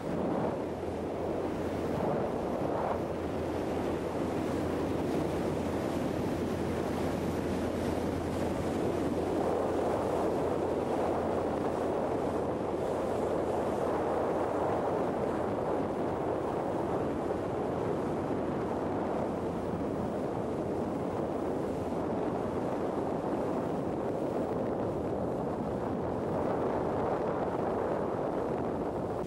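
Steady rush of wind buffeting the microphone and water noise from a boat running at speed. A low, steady hum sits under it for roughly the first nine seconds.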